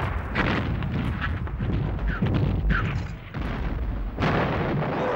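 Black-powder cannon and gunfire: a run of sharp bangs over a continuous low rumble, with a heavy report about four seconds in.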